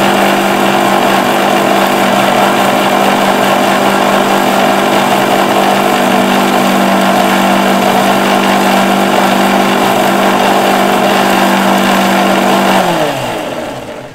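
Electric mixer grinder running steadily while blending egg, garlic and oil into mayonnaise. Near the end it is switched off, and the motor's pitch falls as it spins down.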